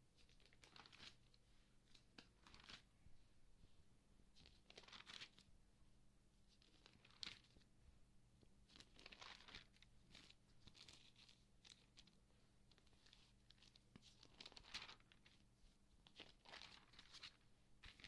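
Magazine pages being turned one after another, each turn a short, faint rustle of paper, about ten in all.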